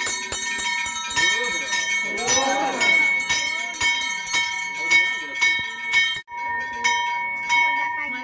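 Brass hand bell rung over and over in a Hindu puja, its clapper striking again and again to keep up a steady high ring, with crowd voices underneath. The sound breaks off for an instant about six seconds in, then the ringing carries on.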